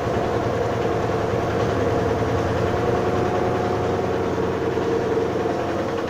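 Mabe Kraken top-load washing machine in its spin cycle, the drum spinning fast with a steady motor hum and whine made of several level tones.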